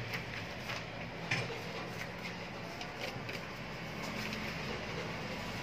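Notebook pages being turned and handled: a few soft paper rustles and taps, mostly in the first couple of seconds, over faint steady room noise.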